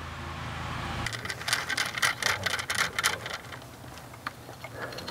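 Quick small clicks and rustles of hands fitting cable wires into a plastic RS-485 terminal connector and handling the cable, thick at first and then thinning out to a few clicks. A steady low hum cuts off abruptly about a second in.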